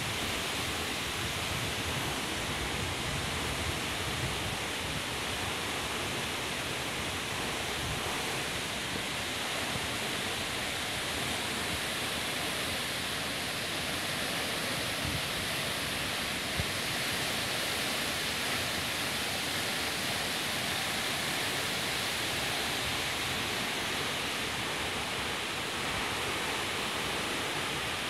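Bambarakanda Falls, a 263 m waterfall, pouring down bare rock: a steady, unbroken rush of falling water.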